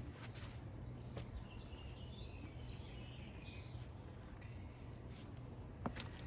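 Faint bird chirping for a couple of seconds, over a low steady background hum, with a few soft clicks.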